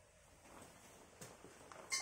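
Quiet handling of metal workshop tools, with one sharp metallic clink and a short ring near the end.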